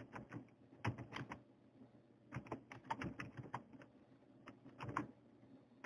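Faint typing on a computer keyboard: short, irregular runs of key clicks with brief pauses between them.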